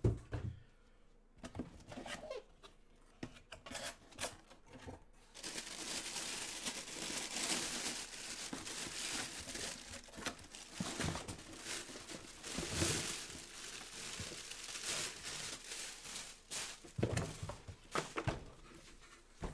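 A thump, then cardboard box flaps being handled and a long stretch of crinkling plastic from about five seconds in as a full-size football helmet in a clear plastic bag is pulled out of its box, with a few knocks near the end.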